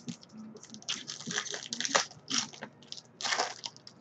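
Football trading cards being flipped and slid against each other in the hands: irregular crisp rustles and snaps of card stock, loudest about a second in and again past three seconds.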